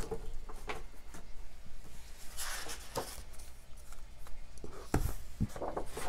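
Pages of a large-format hardcover book being turned by hand: stiff paper rustling and sliding, with a few short taps and thumps as the cover and pages are handled against the desk.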